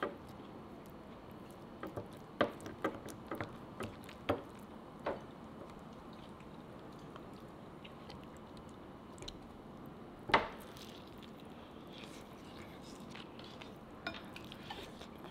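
Wooden spoon clacking and scraping against a ceramic bowl as a braised potato is mashed into sauce and rice: a run of light clicks in the first few seconds and one sharper knock about ten seconds in.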